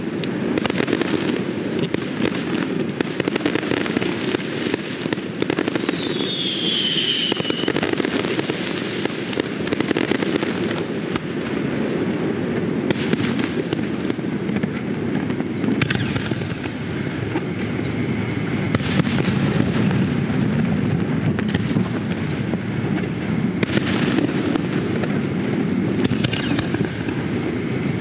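Fireworks display: a dense, continuous barrage of bangs and crackling, with a falling whistle about six seconds in.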